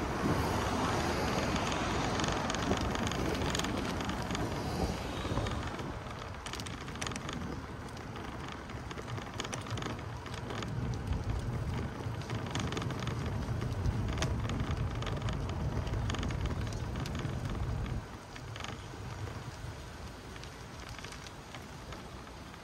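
Outdoor street noise: road traffic going by with a steady low rumble that drops away suddenly about eighteen seconds in, with scattered light clicks over it.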